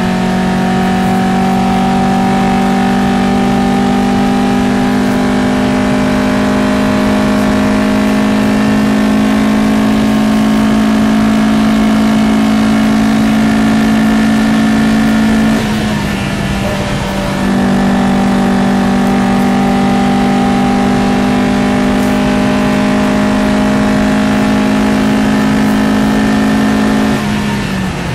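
Matra Jet 6's Renault Gordini 1296 cc four-cylinder racing engine held at high revs under load, heard from inside the cockpit as a loud, steady note. The note dips briefly about halfway through, picks up again, and drops once more near the end.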